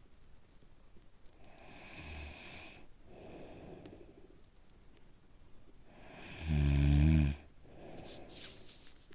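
Snoring in slow breaths. A softer breath with a slight low buzz comes about two seconds in. One loud, low, vibrating snore follows about six and a half seconds in, and each is followed by a breathy exhale.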